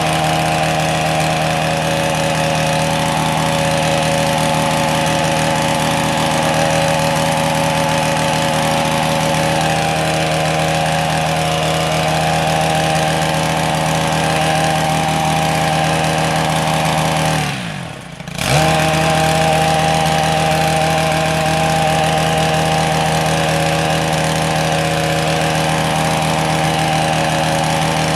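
Petrol hedge trimmer engine running steadily at a high, even pitch. About two-thirds of the way through it briefly falls in pitch and level as the throttle eases off, then comes straight back up to speed.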